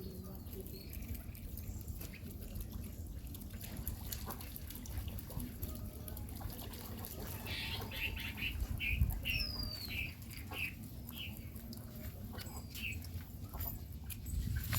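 A bird calling in a run of short, repeated notes, about two a second, starting about halfway in, with one higher falling note among them. Under it is a steady low rumble and scattered faint clicks.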